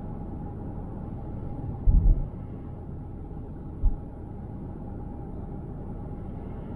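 Steady low rumble of a car travelling at highway speed. A loud low thump comes about two seconds in and a shorter one about two seconds later.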